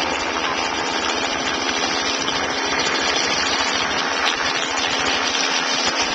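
Small helicopter hovering, its engine and rotor making a steady drone.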